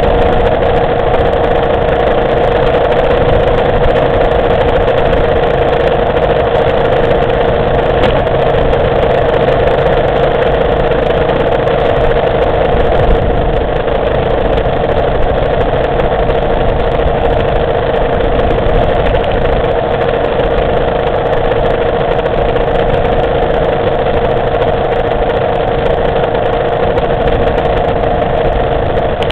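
Motorcycle engine running at a steady cruise, heard from an onboard camera with wind and road noise. Its tone holds nearly steady, easing slightly lower over the stretch.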